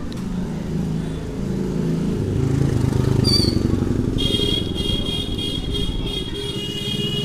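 Street traffic, with motor vehicles such as motorcycles running. About three seconds in comes a brief high glide, and from about four seconds in a high, steady tone sounds over the traffic.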